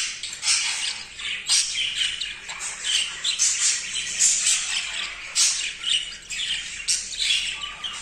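Budgerigars chattering in a fast, unbroken run of short, harsh squawks and chirps. This is the excited warbling of a male budgie while mounting and mating with a hen.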